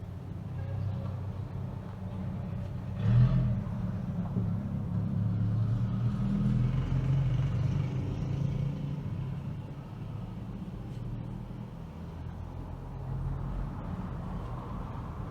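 Steady low background rumble with a single knock about three seconds in, and slow swells of softer noise.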